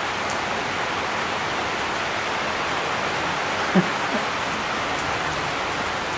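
Steady hiss of heavy rain. About four seconds in comes one brief low voice-like sound.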